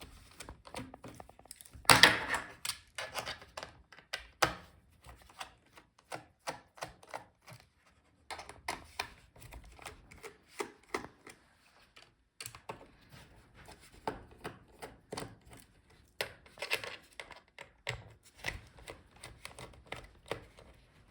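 Screwdriver backing out the small bottom-case screws of an HP EliteBook 840 G8 laptop: a long run of small, irregular clicks and taps, with a louder knock about two seconds in and another a couple of seconds later.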